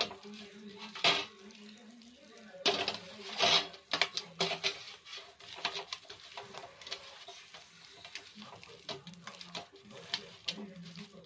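A hand mixing wet chicken marinade in a stainless steel bowl: squishing of the spiced batter with irregular clinks and knocks against the bowl, loudest about a second in and again around three to four seconds in.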